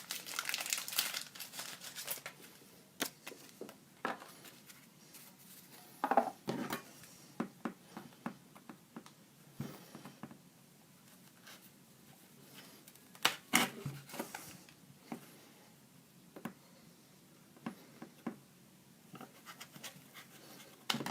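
Hands handling trading-card packaging: intermittent crinkling and rustling with light taps and clicks, the loudest bursts about six seconds in and again around thirteen to fourteen seconds.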